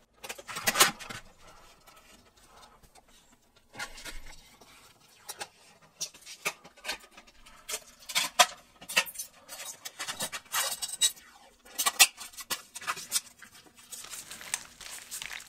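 High-temperature tape being peeled off its roll and wrapped around a block of four prismatic LiFePO4 battery cells: irregular crackling rips of tape pulling free, with hands rubbing on the cell casings, and a longer continuous rasp of tape unwinding near the end.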